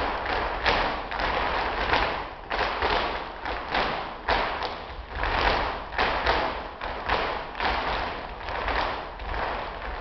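Flamenco footwork (zapateado): heeled dance shoes stamping on a wooden stage floor in a quick, uneven run of heel and toe strikes, several a second.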